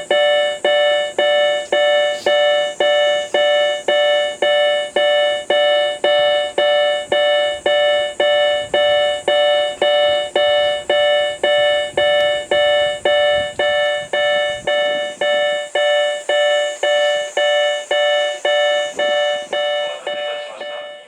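Japanese railway train-approach warning chime: a bright, bell-like electronic tone struck over and over, about twice a second, each strike ringing and dying away before the next. It cuts off abruptly near the end.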